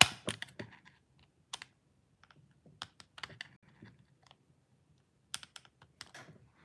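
Irregular small clicks and scrapes of a screwdriver and copper wire against a plastic light-switch plate as a wire is fitted into the brass terminal and the screw is worked, with a sharper click right at the start and a flurry of clicks near the end.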